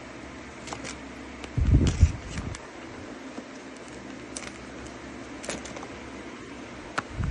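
Small blind-box packaging handled close to the microphone: scattered light crinkles and clicks over a steady hum, with two louder bursts of low rumbling handling noise, about two seconds in and near the end.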